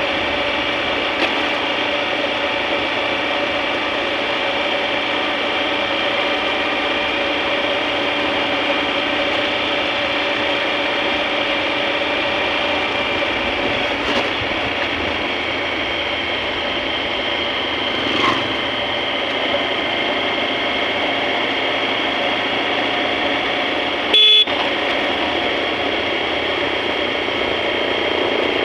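Motorcycle engine running steadily while riding at an even speed. Late on, one short, loud beep of the horn.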